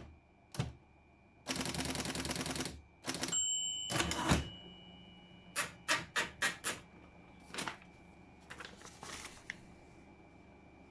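Underwood Documentor electric typewriter running, with its motor's steady hum. Two fast rattling runs of strikes come in the first half, then a handful of single sharp keystrokes and a few softer ones.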